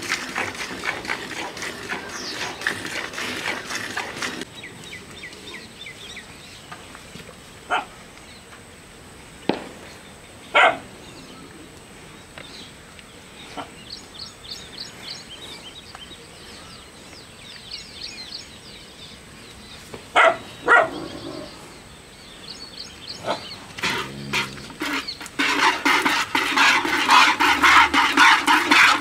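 A cow being hand-milked into a plastic bucket: from about 25 seconds in, a fast, steady rhythm of milk streams squirting into the bucket. Before that, birds chirp, with a few short loud animal calls.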